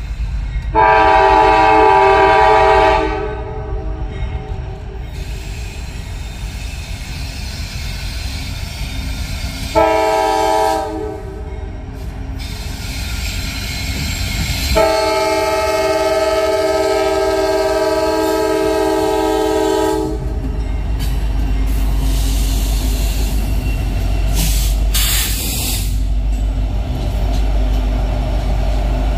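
Norfolk Southern diesel locomotive's multi-chime air horn sounding for a grade crossing: a blast of about two seconds, a short blast, then a long one of about five seconds. After that the locomotives pass close by, their diesel engines running loud over the rumble of wheels on rail, with a brief high screech near the end.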